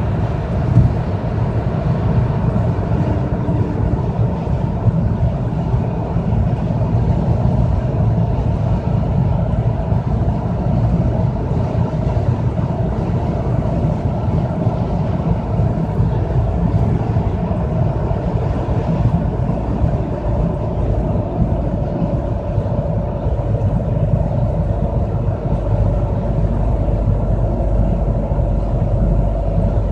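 Inside an Audi A4 B5 driving at speed: steady road and drivetrain noise with a pulsing hum underneath that blends with the road noise. The owner links the hum, which comes on at around 40 mph along with a slight vibration in the steering wheel and seat, to the driveshaft.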